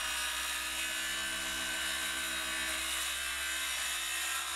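Cordless DeWalt circular saw running steadily with a high whine as its blade cuts through a wooden deck post just below the carved post cap.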